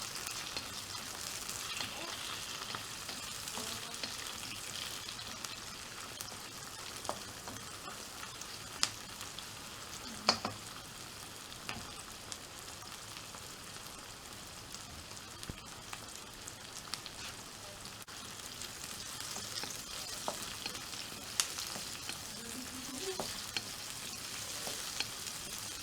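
Chopped tomato and garlic sizzling steadily in hot oil in a frying pan while being stirred, with a few sharp clicks of the spatula against the pan.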